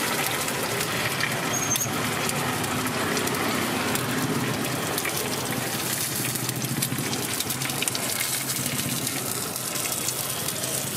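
Two eggs frying on a hot iron griddle, sizzling steadily with fine crackles.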